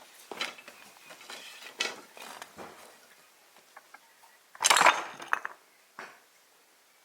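Irregular light clicks, taps and clinks of small hard objects being handled, with the loudest clatter about five seconds in.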